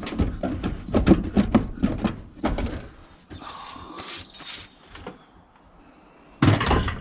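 Scrap being handled: a quick run of clattering knocks and rattles, then softer scraping with a few thin squeaks, and one loud scrape near the end.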